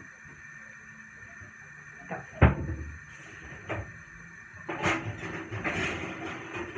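Kitchen knocks and handling noise while a glass pan lid is fetched: one sharp knock about two and a half seconds in, a lighter click about a second later, then rustling and clatter close by near the end.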